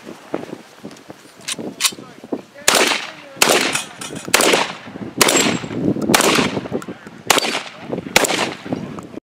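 Gunshots from a competitor's long gun firing a string of about seven loud shots, roughly one every 0.8 to 0.9 seconds, each ringing out briefly, after a couple of lighter shots. The sound cuts off abruptly just before the end.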